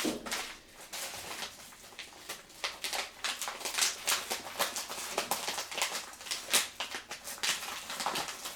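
Plastic packaging being handled and opened by hand: irregular crinkling and rustling with small scrapes throughout.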